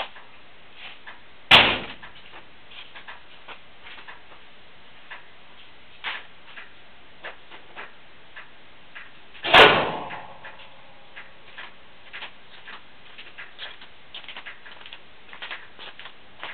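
Two loud slams about eight seconds apart, like a door being shut; the second rings briefly afterwards. Faint irregular ticks in between, with no engine running.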